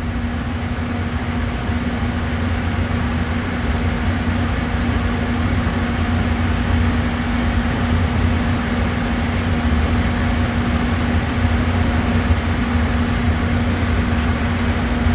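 Steady hum and rush of air from running shop machinery, with a constant low tone.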